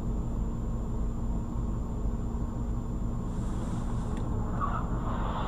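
Steady low rumble of an idling car and nearby traffic, heard from inside the cabin of a stopped car through a dashcam microphone, with a thin steady high tone over it.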